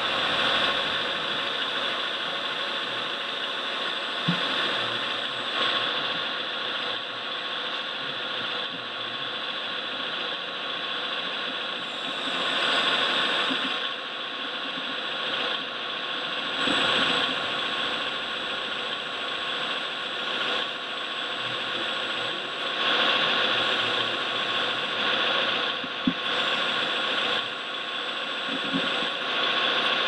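Scale RC model truck's hydraulic loader crane running: the electric hydraulic pump and gearing whine steadily, swelling louder several times as the crane lifts and swings. A couple of sharp clicks stand out.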